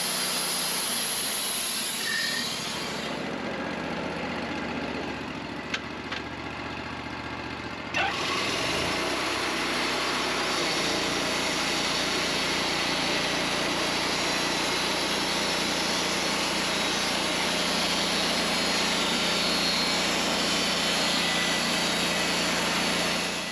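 Wood-Mizer LT40 Wide band sawmill running steadily. About eight seconds in there is a sharp knock, then the engine revs up over a couple of seconds and holds steady.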